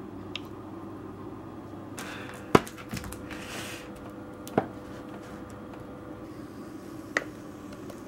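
A few sharp clinks and knocks of kitchen utensils against a steel mixing bowl and waffle maker, the loudest about two and a half seconds in, with a short stretch of scraping or stirring noise, over a steady low hum.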